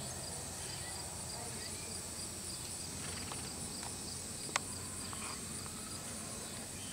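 Insects chirping steadily in a high, evenly pulsing drone, with a single sharp click about four and a half seconds in.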